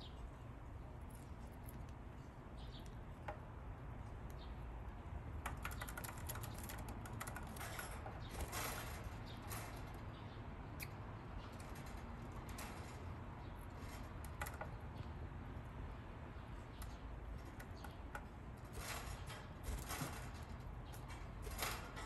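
Pet budgies moving about: scattered small clicks, taps and scratches, with a few short rustling bursts, over a low steady hum. No chirping stands out.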